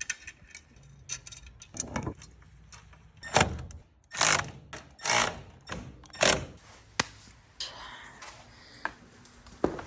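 Metallic clicks, clinks and knocks of caster wheels, bolts and socket tools being handled while fitting casters to a steel tool chest, with a few louder knocks in the middle.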